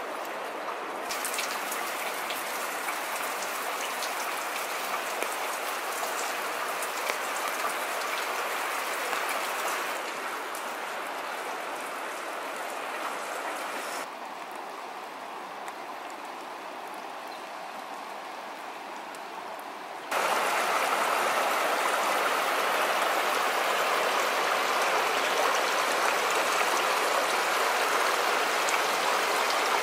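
Steady hiss of water: drips and trickles from ice-draped rock, with faint scattered drip ticks early on. About two-thirds of the way through it gives way to a louder, shallow rocky creek running over stones.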